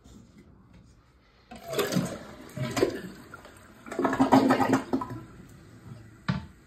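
Toilet flushing, water rushing through the bowl in two loud surges with a pitched hum in the second, then a couple of sharp knocks near the end.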